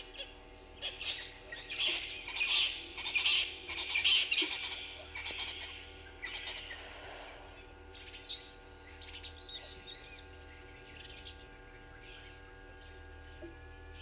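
Brown-headed parrot calling: a run of harsh, high calls over the first five seconds or so, then scattered fainter calls.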